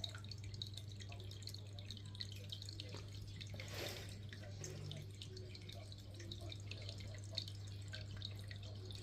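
Aquarium filter outflow trickling and dripping into the tank water, a steady patter of small splashes with a slightly fuller splash about four seconds in, over a steady low hum.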